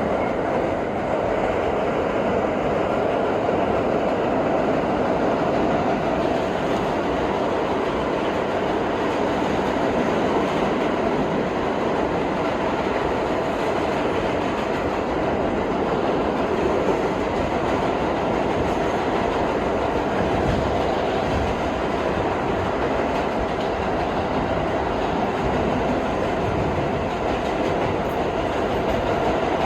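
R32 subway car running between stations, heard from inside the car: a steady rumble of wheels on the rails and the running gear.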